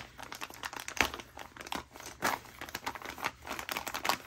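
Packaging of a pack of nail brush wipes crinkling and rustling as it is handled, in irregular crackles with one sharper snap about a second in.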